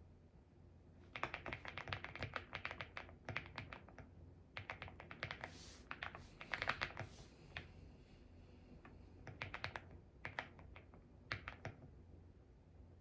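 Typing on a mechanical keyboard: runs of quick keystrokes with short pauses, starting about a second in and stopping near the end.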